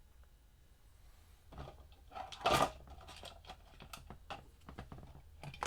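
Small clicks and rustling from handling small guitar parts on a workbench, with one louder rustling scrape about two and a half seconds in.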